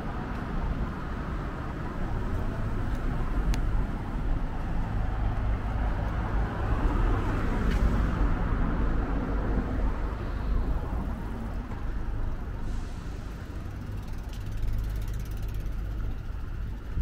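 Road traffic on a wide city street: cars passing close by, the sound swelling to its loudest about halfway through over a low rumble.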